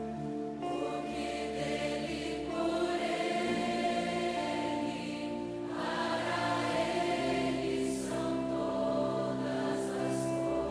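Slow choral music: voices holding long chords that change every two to three seconds.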